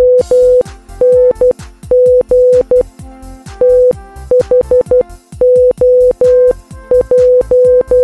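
Morse code practice message sent as a steady single-pitch beep keyed on and off in short dots and long dashes, with short gaps between letters. Synthesizer background music plays quietly underneath.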